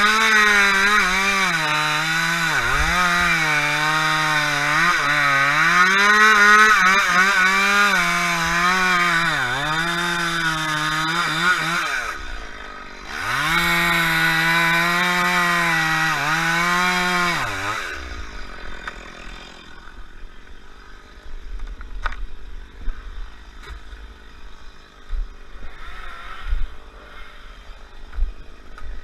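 Two-stroke chainsaw running at high revs and cutting, its pitch dipping and recovering again and again as it takes the load. About twelve seconds in it drops off briefly, revs up again, and cuts out about eighteen seconds in, leaving only faint knocks.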